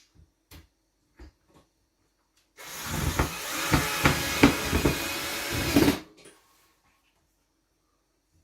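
Power drill running for about three seconds, driving a screw up into the ceiling to fasten a metal pot rack, after a few faint knocks.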